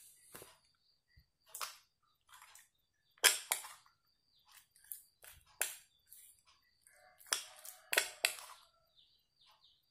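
Metal spoon clinking and scraping against a glass dish while stirring slime: scattered sharp clinks, loudest about three seconds in and again around eight seconds.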